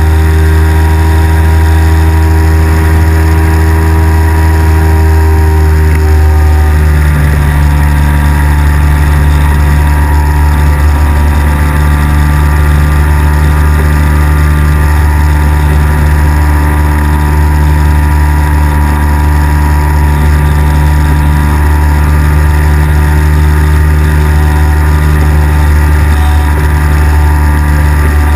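Engine and pusher propeller of a weight-shift microlight trike running steadily and loudly in flight. The engine note shifts slightly about seven seconds in, then holds steady.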